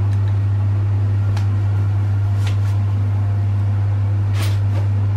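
A loud, steady low hum, like a room ventilation fan or other machine, with a few faint rustles and clicks.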